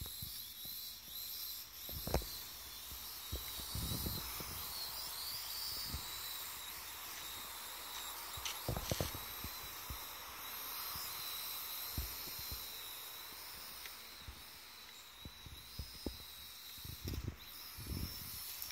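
A small UDI RC quadcopter's motors and propellers whine high-pitched as it flies, the pitch wavering as the throttle changes. Scattered short low thumps are mixed in.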